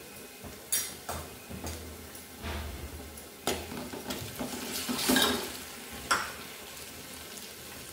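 A steel spoon stirring chopped onions and ginger-garlic paste in a metal pot, with several sharp clinks and scrapes of the spoon against the pot over a faint sizzle of frying oil. The loudest cluster of clinks and scrapes comes about five seconds in.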